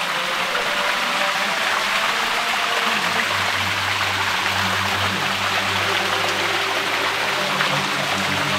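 Rainwater streaming and splashing down a long flight of stone steps, a steady rushing. Soft background music with low held tones runs underneath.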